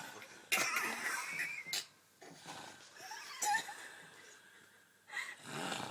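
A drunk woman snoring: three noisy snoring breaths a couple of seconds apart.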